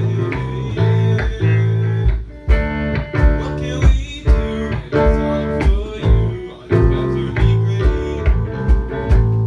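Live band playing: electric guitars and bass guitar over a drum kit keeping a steady beat.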